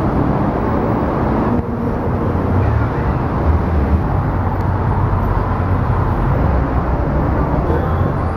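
Busy city street ambience: a steady rumble of road traffic with passers-by, picked up live on a walking camera's microphone.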